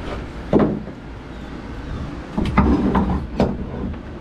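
Several knocks and clunks against the boat's fiberglass hull as a part is worked loose and pulled out of the rear compartment: one about half a second in, then three more in quick succession in the second half, over a low rumble.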